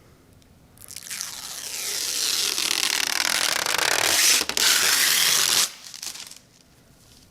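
Protective plastic film being peeled off a PC case's glass panel in one long continuous pull, a tearing hiss that grows louder over about five seconds and cuts off suddenly as the film comes free.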